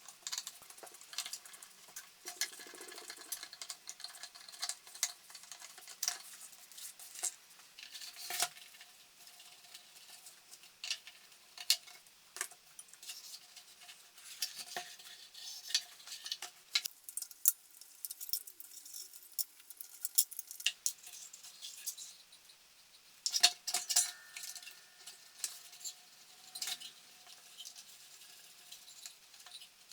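Irregular scraping and sharp clicks of hand tools working the wooden inner cash drawer of an old cash register, with a faint steady hum underneath.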